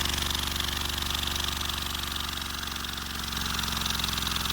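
Lego hinge-valve vacuum engine running at very high speed, around 3,000 rpm: a steady, rapid mechanical buzz. It eases slightly in loudness midway, then picks up again.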